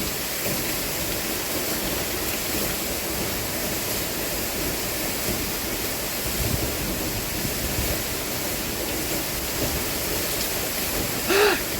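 A waterfall's steady rush of falling water, with a brief voice sound near the end.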